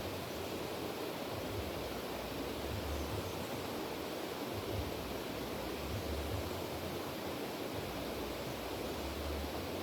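River water rushing steadily, an even unbroken noise, with a low rumble that swells and fades every second or two.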